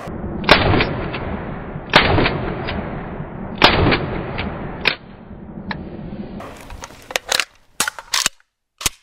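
Romanian AKMS (Md.65) 7.62×39mm rifle firing single shots about a second and a half apart, each trailing off in a long echo. Near the end come a series of short, sharp metallic clicks from the rifle's action as it is handled.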